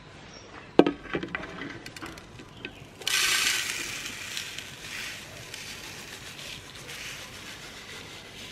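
Meat grinder crushing an item: a knock and some clatter, then about three seconds in a sudden crackling, grinding noise that slowly fades.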